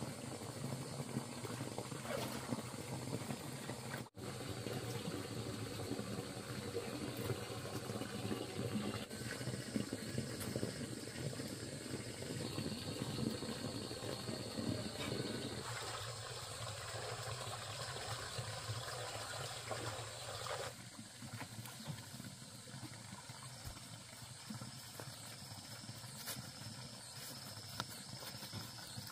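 Water sloshing around the legs of someone wading in a shallow pond, over a steady high hiss; the sound changes abruptly a few times.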